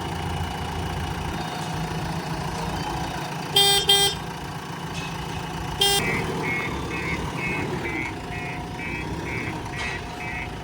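Backhoe loader engine running steadily; a vehicle horn toots twice in quick succession, then once more, and a reversing alarm then beeps about two to three times a second.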